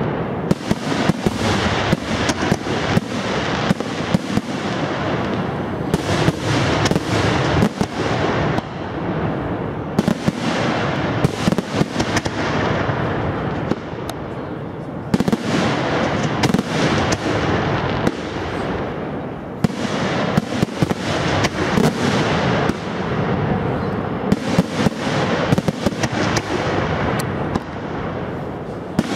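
Aerial fireworks launching and bursting in quick succession: a dense, nearly continuous barrage of bangs and crackling, with a few short lulls.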